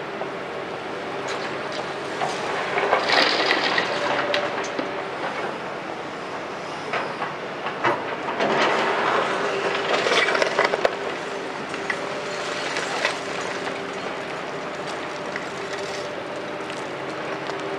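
Hitachi 210 excavator's diesel engine running steadily under load, with two stretches of loud clattering and scraping, about two seconds in and again around eight seconds in, as its bucket works broken concrete rubble while loading a dump truck.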